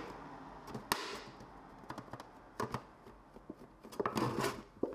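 Thin single-wall ABS 3D-printed vase handled in the hands: scattered sharp clicks and crackles of the thin plastic wall flexing under the fingers, with a quick cluster of them near the end.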